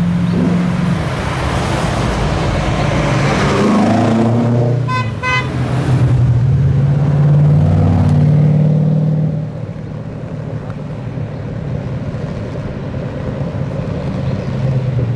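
Cars driving past, their engines revving with rising and falling pitch, loudest until about nine seconds in. Two short horn toots sound about five seconds in.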